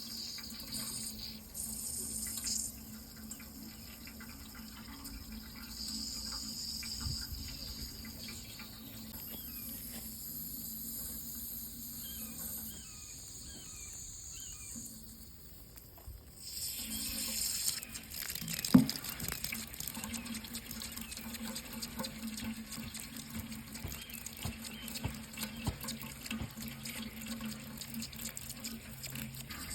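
Water running steadily from a tap into a sink. It grows louder and fuller about halfway through, and a single sharp knock comes a couple of seconds later.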